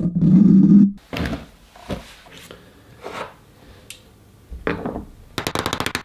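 A loud hum cuts off about a second in. It is followed by scattered knocks and taps of hard 3D-printed plastic parts being handled and fitted together, and a rapid run of clicks near the end as the hub is pressed into the tyre.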